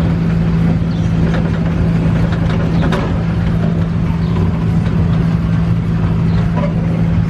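Miniature park train running: a steady engine hum over the rumble and clatter of the ride.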